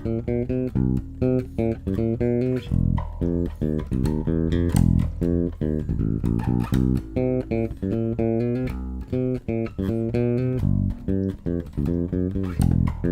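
Electric bass guitar played solo in a fast run of plucked notes, recorded direct, with the Noteslap Booster switched in and the EQ flat: a thicker, clearer, punchier tone with the bass's own character unchanged.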